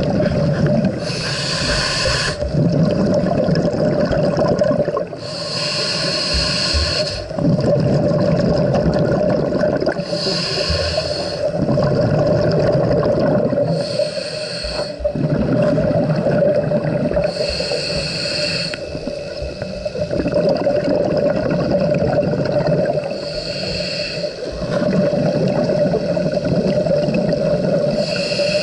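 Scuba diver breathing through a regulator underwater: slow inhalations alternate with bubbly, hissing exhalations about every four to five seconds, over a steady hum.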